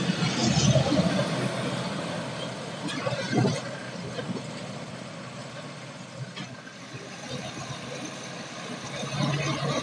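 Diesel truck engines pulling up a climb with tyre and road noise. The sound is loudest at the start, dies away through the middle as a truck drives off, and builds again near the end as another truck comes closer.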